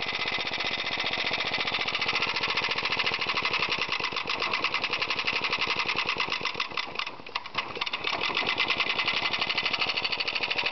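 6-cubic-inch compressed-air engine built from a 2 hp Briggs & Stratton, its camshaft driven at full crankshaft speed through an idler gear, running with a fast, even chatter of pulses and noise from backlash in its three gears. About seven seconds in it briefly drops off and slows, then picks back up.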